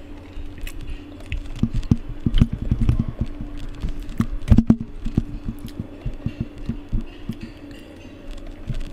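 A quick, irregular run of dull knocks and thumps, densest in the middle, over a steady low hum.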